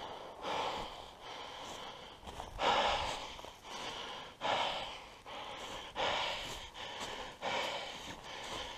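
A freshly shot bull moose lying on its side, breathing out hard in noisy snorting breaths about every one and a half to two seconds as it dies.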